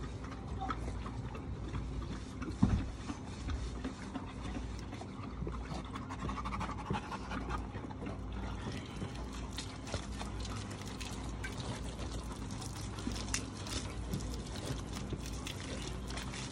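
Dogs panting steadily while wet, soapy fur is rubbed and scrubbed by hand. There is a single thump about two and a half seconds in.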